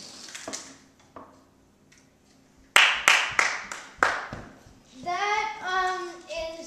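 Hands clapping: about half a dozen sharp claps over a second and a half, followed by a child's voice.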